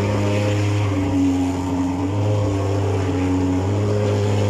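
Gasoline thermal fogging machine running while it puts out insecticide fog against mosquitoes. It gives a steady engine drone whose pitch shifts slightly now and then.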